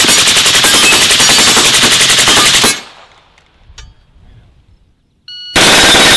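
Full-auto gunfire: a long burst of about three seconds from a Krebs Custom AK-pattern rifle, fired in rapid, evenly spaced shots. After a pause, near the end, a second rapid burst comes from a CZ Scorpion Evo.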